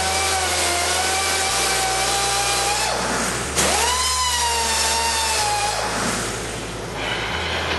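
Small hose-fed air grinder grinding excess weld off a cast iron stove door: a steady high whine that drops away about three seconds in, starts again suddenly and higher about half a second later, then sags lower again near the end.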